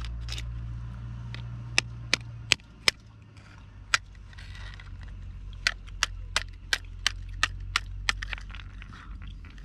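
Cooked lobster shell cracking as it is broken apart by hand: a series of sharp cracks, a few scattered at first, then a quicker run of about three a second, over a steady low hum.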